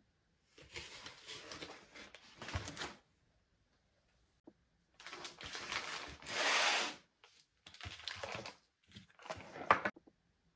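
Rustling and handling noises in several short bursts with silent gaps between them; the loudest is a brief rushing noise a little past the middle, and there is a sharp click near the end.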